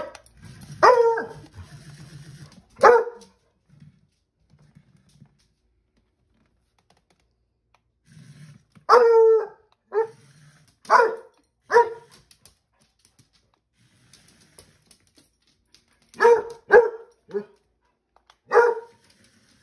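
A puppy barking, about ten short barks in three bunches: two near the start, four around the middle and four near the end, with quiet gaps between.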